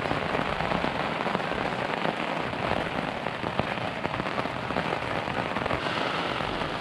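Steady rain falling on an MSR Access 2 tent, heard from inside: an even, unbroken hiss of countless small drop impacts on the tent fabric.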